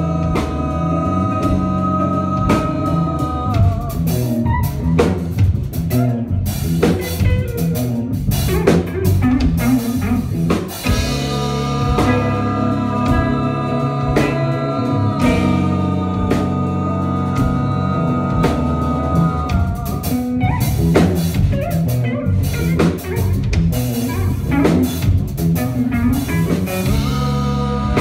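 Live band playing loud: held guitar chords over drum kit, shifting between sustained-chord sections and busier drum-driven passages with many cymbal and snare hits.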